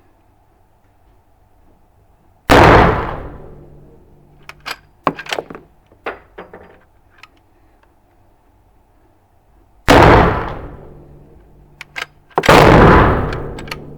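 Three rifle shots from an Uberti 1873 lever-action rifle: one about two and a half seconds in, then two more near the end about two and a half seconds apart, each ringing out briefly. Between the shots come short metallic clicks as the lever action is worked to chamber the next round.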